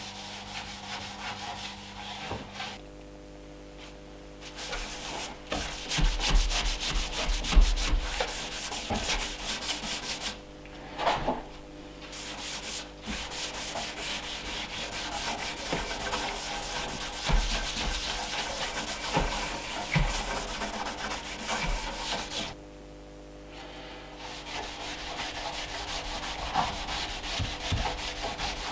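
Wax finish being rubbed by hand into an oak table base: a fast, scratchy rubbing hiss of many short strokes. It stops briefly three times.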